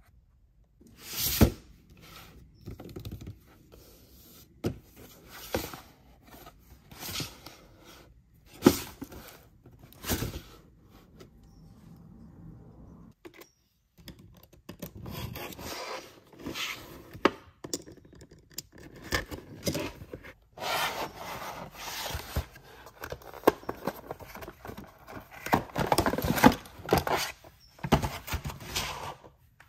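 Unboxing a toy in its cardboard box: the box is knocked and handled, tape is slit with a small blade, and cardboard and plastic packaging rustle and scrape. It comes as a string of sharp knocks and scrapes, with a short silent gap about halfway through.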